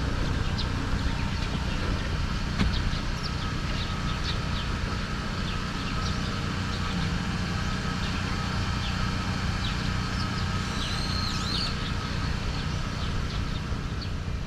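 Small birds chirping in short calls over a steady low hum, with a busier burst of calls about three-quarters of the way through.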